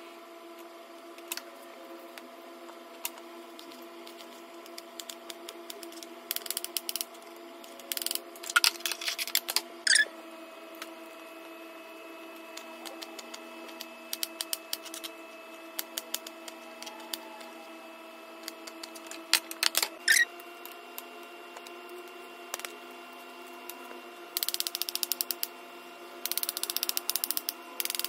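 Kitchen knife cutting fruit on a plastic chopping board: scattered taps and several short runs of quick knocks as the blade hits the board, over a steady background hum.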